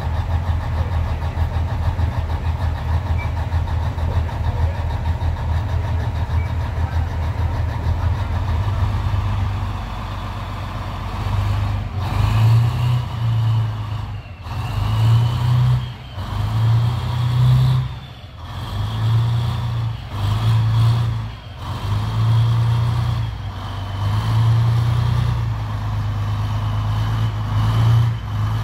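M88 armored recovery vehicle's diesel engine, running steadily at first, then from about twelve seconds in revving up and dropping back again and again under load while it hoists and moves a slung tank track unit, with a high whine rising and falling alongside.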